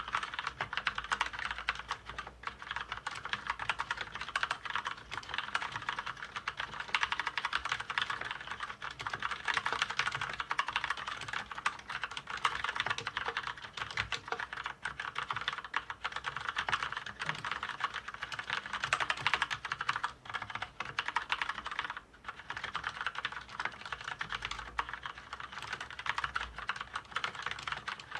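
Continuous fast typing on a mechanical keyboard with Outemu red linear switches, a dense run of key clicks and clacks with a few brief pauses.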